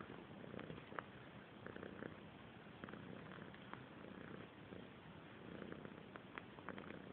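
A cat purring faintly and steadily, the purr swelling and fading with each breath about once a second. A few small clicks sound over it, the sharpest about a second in.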